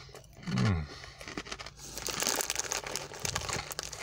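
Crinkly plastic snack packet of pork scratchings being rustled and crumpled, a dense crackle of small clicks through the second half. A short falling vocal hum about half a second in.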